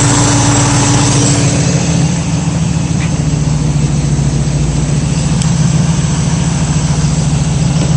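The 1965 Mustang's engine idling steadily at operating temperature, with the electric fan on the new aluminium radiator running. The pitch of the hum shifts slightly about two seconds in.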